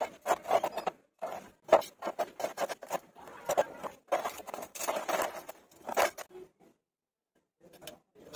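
Square iron tubes and a magnetic welding angle holder being handled and fitted together: a run of short scrapes, clicks and knocks of metal against metal, stopping for about a second near the end.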